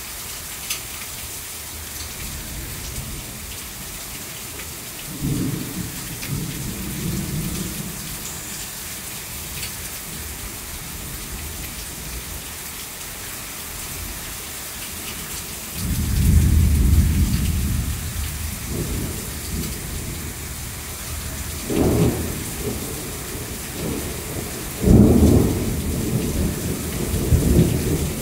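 Heavy rain falling steadily, with thunder rumbling. A low roll comes about five seconds in and a longer, louder one around the middle. Sharper claps follow near the end, the loudest about three seconds before it.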